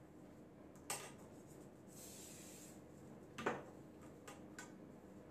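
Light clicks and clinks of small hairdressing tools being handled on a glass tabletop: one about a second in, a louder one about three and a half seconds in, and fainter ticks after. A brief soft rustle comes about two seconds in.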